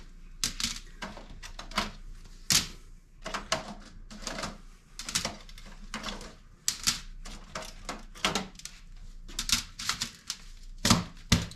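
Range-hood mesh grease filters being unlatched, pulled out and set down: a quick, irregular run of sharp clicks and clacks.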